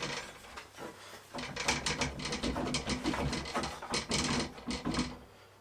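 A metal work rest being fitted onto a knife maker's grinder: a run of irregular clicks, knocks and scrapes of metal parts being handled and set in place.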